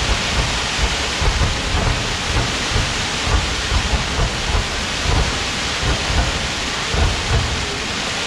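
Fireworks going off: a dense crackling hiss from many bursts, with frequent low booms that thin out near the end.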